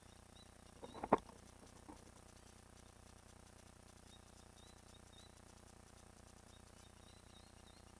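A short cluster of knocks about a second in, then a single light click, against faint scattered high chirps.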